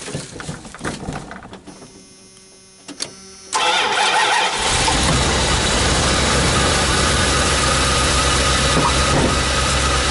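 Van engine with a dead battery, cranked on a lithium jump starter pack. It starts almost at once about three and a half seconds in, then settles into a steady idle.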